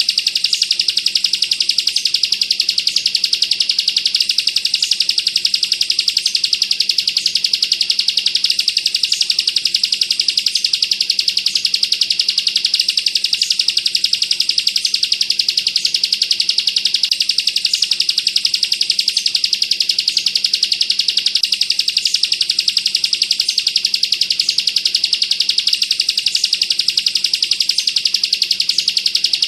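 Bar-winged prinia (ciblek) singing the 'bren' song: a dense, unbroken, high-pitched rapid rattling trill.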